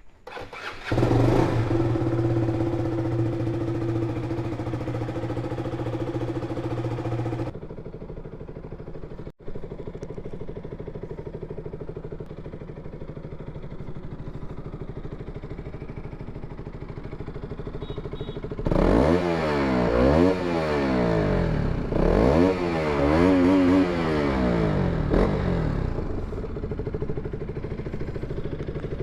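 KTM single-cylinder motorcycle engine starting about a second in and running at a fast idle that drops to a lower, steady idle after a few seconds. About two-thirds of the way through the throttle is blipped several times, the revs rising and falling, before it returns to idle.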